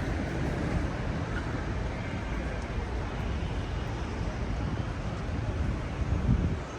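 Steady low rumbling vehicle noise.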